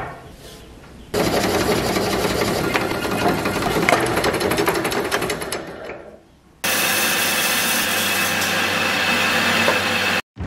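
Band saw running and cutting through a block of wood, in two stretches: the first starts about a second in and fades out a little past halfway, the second starts abruptly and cuts off just before the end.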